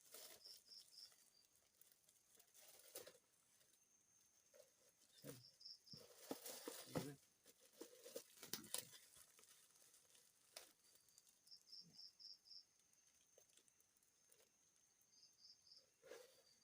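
Faint rustling and clicks of handling, louder for a few seconds in the middle. Short high insect chirps come in groups of three or four, repeating every few seconds.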